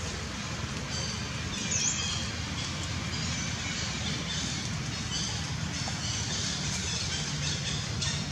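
Outdoor forest ambience: short high chirps and squeaks over a steady low rumble.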